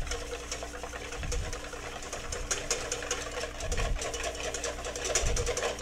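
Metal wire whisk beating eggs and cream in a stainless steel bowl: a fast, continuous metal-on-metal rattle.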